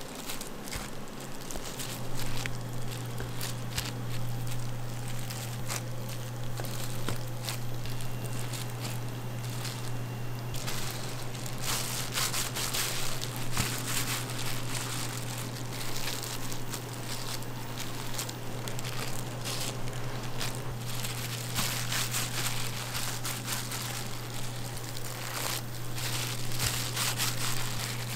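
Clear plastic food gloves crinkling and rustling, with small taps and scrapes of a plastic dough scraper cutting dough on a plastic cutting board, over a steady low hum that starts about two seconds in.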